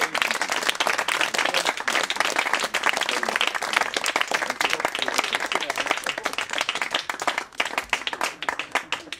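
A small audience applauding by hand: dense, irregular clapping from about a dozen people.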